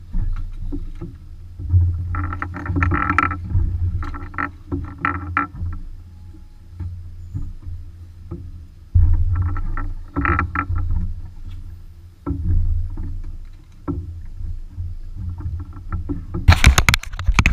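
Small boat at sea: a fluctuating low rumble with water splashing against the hull in several bursts. Near the end a run of loud sharp knocks and clatter.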